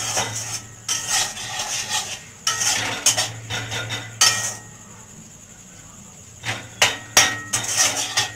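Metal spatula scraping and knocking against a cooking pan as pasta is stirred. The stirring goes quiet about halfway through, then comes several sharp knocks near the end.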